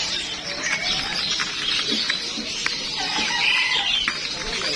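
Many small caged birds chirping and twittering over one another in a dense chatter, with short sharp chips scattered throughout.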